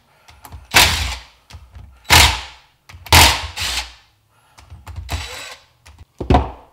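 Cordless power driver spinning out the cylinder head bolts of a KTM 85 SX two-stroke engine in about five short bursts, the third one longer.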